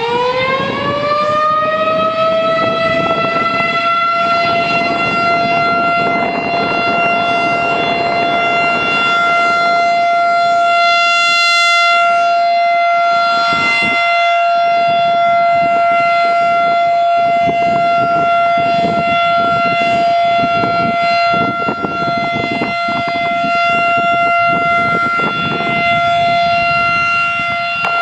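Federal Signal 2001-SRN electromechanical outdoor warning siren finishing its wind-up in the first couple of seconds, then holding one steady, loud wailing tone for its monthly test.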